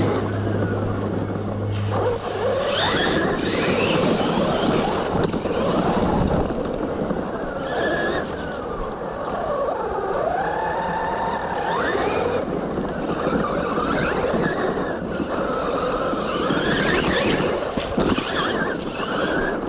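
Electric RC car's motor whining up and down in pitch as it accelerates and slows again and again, over the noise of its tyres scrabbling and skidding on loose dirt and gravel.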